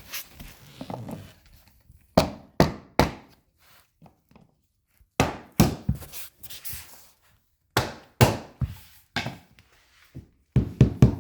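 Sharp wooden knocks from tapping waterproof hickory hardwood flooring planks sideways to close the click-lock joint between them. There are three quick bursts of three or four knocks each, with short pauses between.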